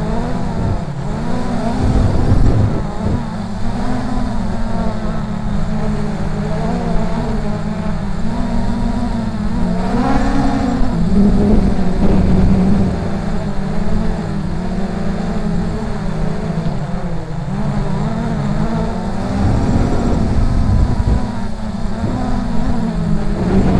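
Brushless motors and propellers of a Force 1 F100 Ghost (MJX Bugs 3) quadcopter in flight, their hum rising and falling in pitch as the throttle changes, with gusty wind noise underneath.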